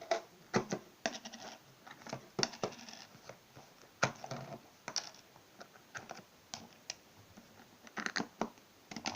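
Irregular clicking and light clattering of small plastic slime tubs and their lids being handled and opened, with some scratching, loudest at about four seconds in and around eight seconds in.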